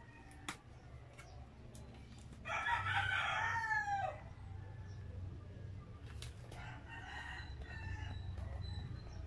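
A rooster crowing once, a long call of about a second and a half that falls in pitch at the end, then a fainter second crow a few seconds later. A few light clicks of food packaging being handled.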